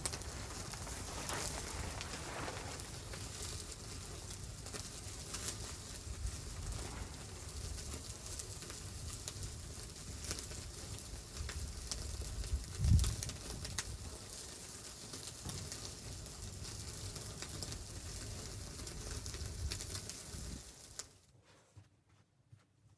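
Steady crackling and hissing with a low rumble underneath, and a single heavy thump about thirteen seconds in; the sound cuts off shortly before the end.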